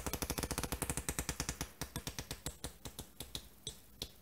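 Deck of playing cards riffled off the thumb like a flip book: a fast run of crisp card flicks that slows about halfway through and thins out to single flicks near the end.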